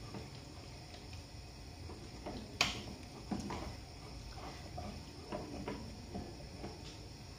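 Plastic bag crinkling and rustling while pieces of marinated mutton are lifted out by hand, with small wet squishes and knocks at irregular intervals. A single sharp click about two and a half seconds in is the loudest sound.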